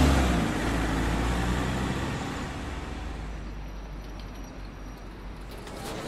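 A truck driving past and away, its engine and road noise loudest at the start and fading steadily over several seconds.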